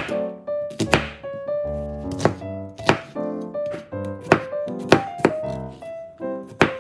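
Chef's knife chopping half an onion and then garlic cloves on a plastic cutting board: about ten sharp knocks at uneven intervals, over background piano music.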